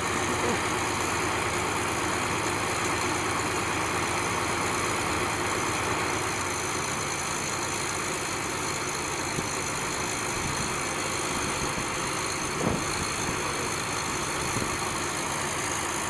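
Diesel engine of a Kirovets K-700-series articulated tractor idling steadily while the tractor sits stuck in deep snow.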